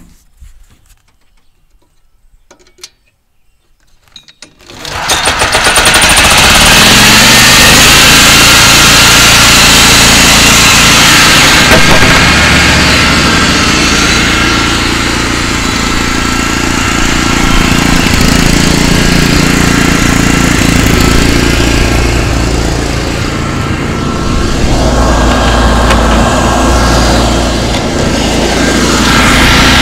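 Lawn tractor engine starting about five seconds in after a few faint clicks, then running loud and steady.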